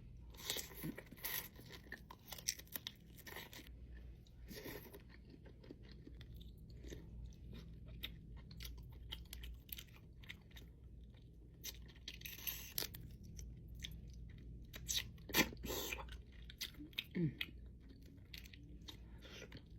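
Close-miked mukbang eating sounds: chewing and biting, with scattered wet clicks and small crunches, a few louder ones a little before the end.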